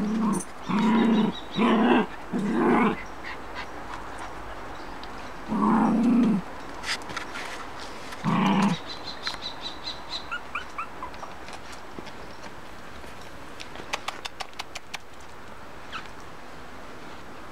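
A dog barking: four barks in quick succession in the first three seconds, then two more, a couple of seconds apart.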